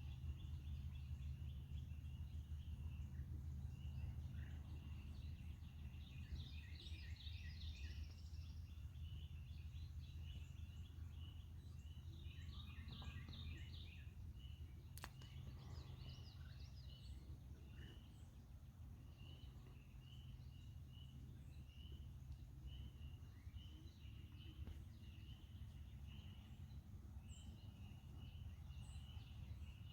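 Faint small songbirds chirping and singing over and over, over a low steady rumble, with a single sharp click about halfway through.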